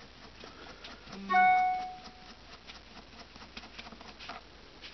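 Faint, irregular light clicking of the small rear sight's windage knob screw being backed out, with a brief ringing pitched note about a second in.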